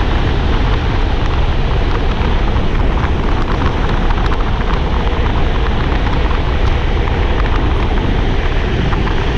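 Heavy wind noise on the camera microphone as a loaded touring bicycle rolls along a lane. It is a steady, loud rushing, mostly low in pitch, with small scattered ticks from the road surface and the bike.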